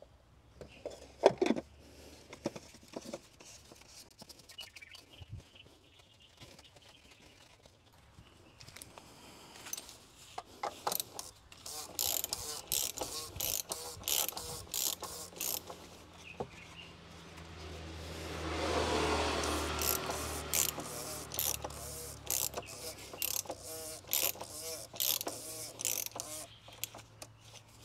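Ratchet wrench with a socket clicking in quick runs as it spins the oil filter cap down onto the filter housing of a BMW S65 V8. Before that come only a few faint clicks and knocks. A low rumble and hiss swells and fades about two-thirds of the way through.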